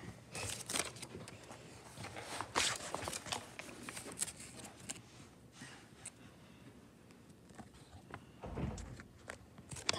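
Scattered light rustles, taps and clicks of hands handling a paper note and objects at close range, with a dull low thump near the end.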